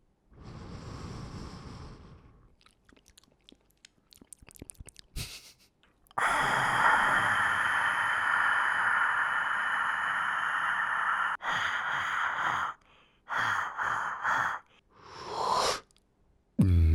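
A man imitating sound effects with his mouth and breath: a soft breathy hiss, then a run of quick clicks, then a loud hiss held for about five seconds, followed by several short hissing bursts and a rising hiss. A low buzzy tone starts near the end.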